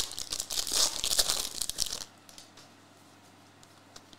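Foil wrapper of a Prizm football trading-card pack being torn open and crinkled, stopping about two seconds in; after that only a few faint ticks as the cards are handled.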